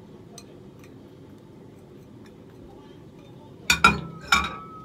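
Glass or ceramic kitchenware clinking: four quick, sharp clinks about three and a half seconds in, with a brief ringing after them.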